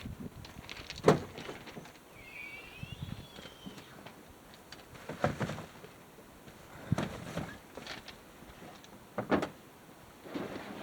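A sharp knock about a second in, then three softer thuds spread a couple of seconds apart, like objects being set down or moved.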